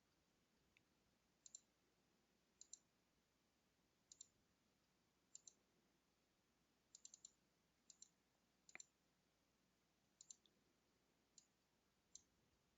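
Faint computer mouse clicks, many in quick pairs, scattered about once a second or so over near silence.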